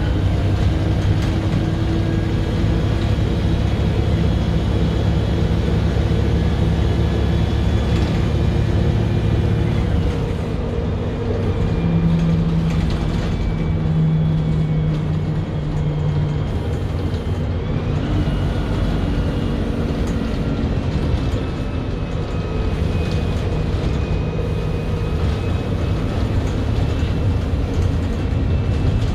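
MAN 18.240 bus's six-cylinder diesel engine and drivetrain running while the bus is under way, heard from inside the saloon. The low engine note eases off about ten seconds in, and a little later a whine rises in pitch.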